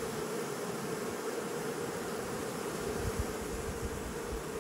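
Honeybee colony giving a strong, steady hum at the hive entrance as the bees fan their wings to ventilate the hive and evaporate water from fresh nectar. The strength of the hum reflects the day's nectar intake, judged here at about 5 kilos.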